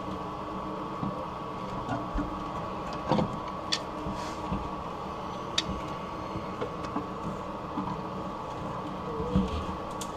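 Channel-lock pliers working a rusted, seized toilet tank bolt: a few scattered metallic clicks and knocks over a steady background hum.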